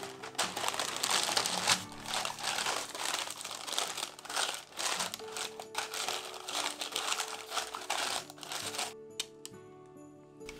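Baking parchment being crumpled by hand and pressed into a small round metal cake pan, crackling in irregular bursts that stop about nine seconds in.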